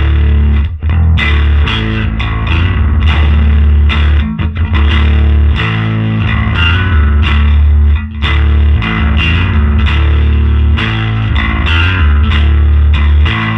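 Electric bass played through a Dusky D₂O tube amplifier: a loud riff of sustained low notes, re-plucked in a steady rhythm.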